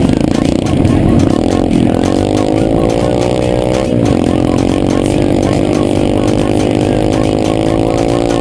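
Dirt bike engine running under way at a fairly steady pitch, rising slightly about two seconds in, with a brief dip near four seconds.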